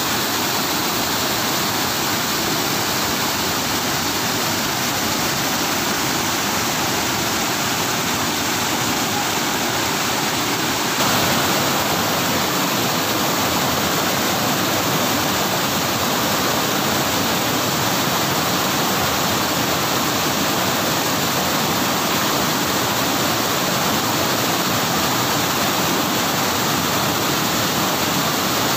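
Waterfall cascading over low rock ledges: a steady rush of falling water that gets a little louder about eleven seconds in.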